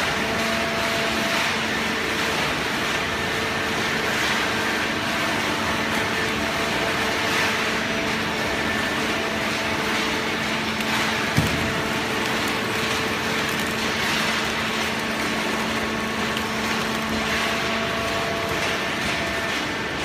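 Hydraulic cardboard baler running: a steady machine hum from its motor and hydraulic pump over an even mechanical noise, with the hum's tone shifting near the end. A single short knock comes about eleven seconds in.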